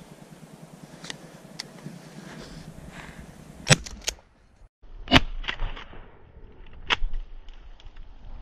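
Three shotgun shots, each a sharp crack with a short tail, about a second and a half apart, the first two the loudest. A few lighter clicks come before the first shot.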